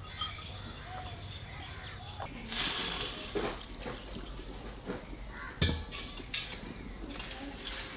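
Water poured from a copper pot into a hot pan of jaggery, hissing and sizzling as it hits the metal and turns to steam, loudest about two and a half seconds in. A single sharp knock comes a little over halfway through.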